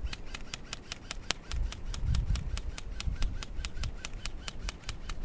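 Airsoft gun firing a rapid, steady string of shots, about six a second.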